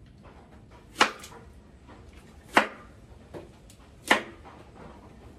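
Kitchen knife cutting an apple on a wooden cutting board: three sharp knocks of the blade hitting the board, about a second and a half apart, with a fainter knock between the second and third.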